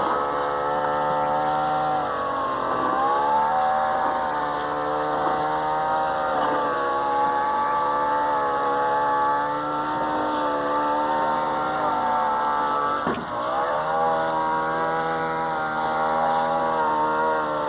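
An engine running at a steady speed, its pitch dipping briefly and recovering twice, about two seconds in and again about two-thirds of the way through.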